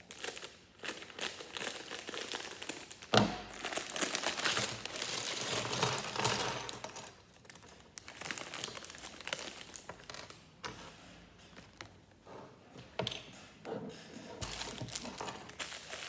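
Crinkling plastic LEGO parts bag being opened and handled, with a sharp knock about three seconds in.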